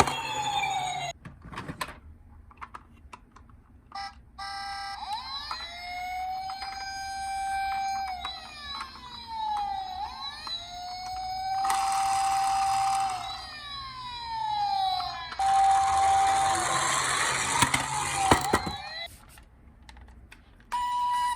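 Toy emergency-vehicle siren in a slow wail: the pitch rises, holds and falls several times over, after a few clicks near the start. Twice, for a second or more, a loud rushing noise sounds over it, about midway and again toward the end.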